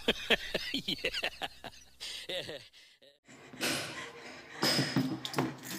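A burst of rapid laughter, short falling 'ha' sounds about five a second, dying away after about two and a half seconds. A brief silent break follows, then background hiss with a few voices.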